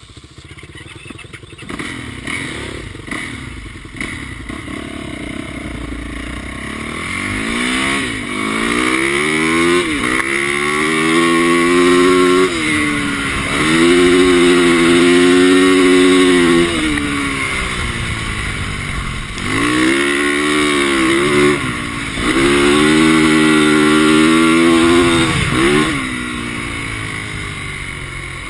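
450cc four-stroke single-cylinder dirt bike engine accelerating hard: the revs climb, drop sharply as it shifts or lets off, and climb again several times, held high for a few seconds at a time, then fall away near the end.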